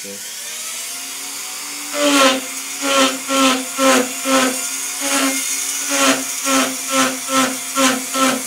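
Handheld rotary tool with a burr switching on and spinning up, running freely for a couple of seconds. Then the burr is pressed again and again into a wood block, about twice a second, each touch a brief louder grinding as it cuts a small dent for surface texture.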